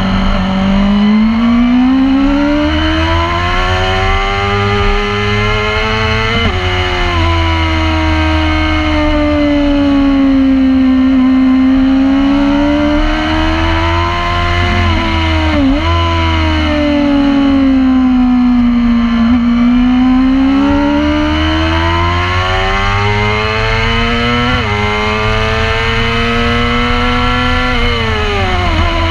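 Racing motorcycle engine under load on track, its pitch climbing and falling as the bike accelerates and slows through corners, with sudden jumps in pitch about a quarter of the way in, near the middle and near the end, as gears are changed.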